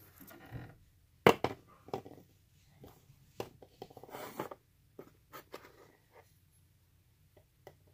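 Small plastic toy figures and miniature furniture being picked up and set down on a cardboard shoebox: scattered light taps and clicks, the sharpest about a second in, with a brief rustle of handling around four seconds in.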